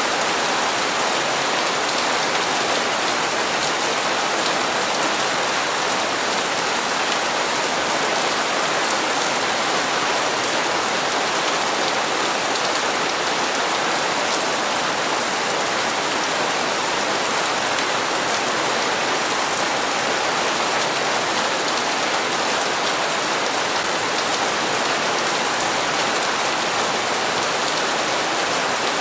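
Steady rainfall, a dense even hiss of drops pattering on hard surfaces, with no pauses or changes in intensity.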